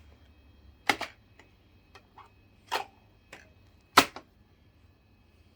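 Three sharp clicks or knocks, about a second in, near three seconds and about four seconds in, with a few fainter ticks between them: handling sounds as the next CD is being put on.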